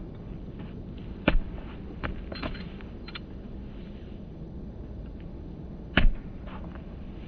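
A football struck hard, a sharp thump about a second in, then a second sharp thump near the end as the ball is met again, with a few lighter knocks in between over steady low background noise.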